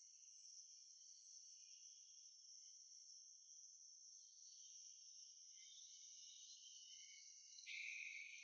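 Near silence: only a faint steady high-pitched hiss, briefly louder near the end.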